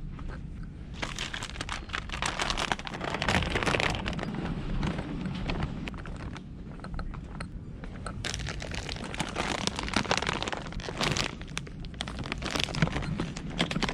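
A plastic candy bag crinkling and rustling as it is handled, in several spells of crackly rustling with short quieter gaps between.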